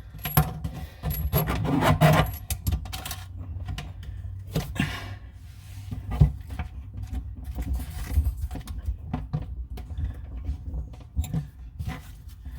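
Scattered small metallic clinks, taps and scrapes as a faucet's plumbing fitting is threaded on by hand and parts and tools are handled under the sink, over a steady low hum.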